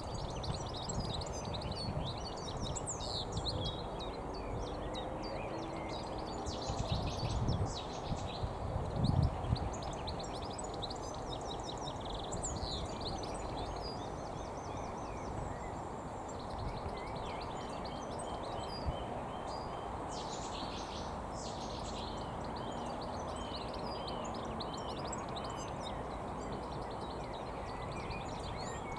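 European goldfinch singing, a long run of quick, high twittering and chirping notes, over a steady low background hiss and rumble that swells briefly a few times about eight seconds in.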